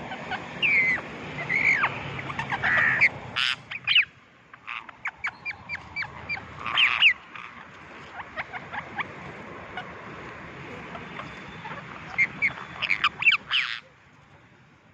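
Parrots squawking and chattering in shrill, bending calls, with a quick run of short chirps about five seconds in and another burst of calls near the end.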